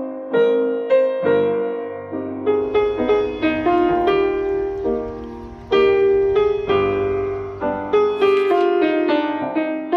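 Background music: a gentle piano melody of struck notes that ring and fade.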